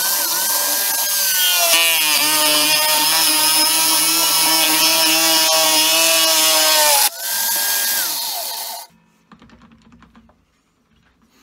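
Corded electric drill mounted in a bench drill stand, running a 25 mm spade bit down into 40 mm chipboard worktop. The motor's whine drops in pitch as the bit bites in about two seconds in. The drill stops about seven seconds in, runs again briefly, then stops.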